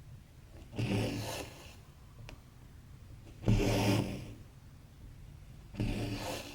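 Stranded embroidery thread drawn through stamped cross-stitch fabric with a rasping rub, three pulls about two and a half seconds apart, with a light tick between the first two as the needle goes in.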